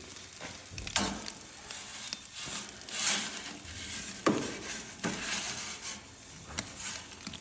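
Scattered light knocks, clinks and scrapes of pizza-making utensils being handled, with a sharp knock about four seconds in.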